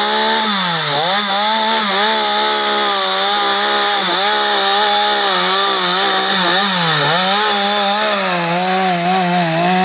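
Stihl MS 250 two-stroke chainsaw with a short bar running at full throttle while cutting through a thick log. The engine pitch dips briefly three times, about 1, 4 and 7 seconds in, as the chain bites into the wood.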